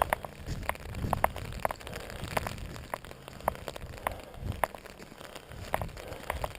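Raindrops tapping irregularly on an umbrella, a few sharp ticks a second over a low rumble.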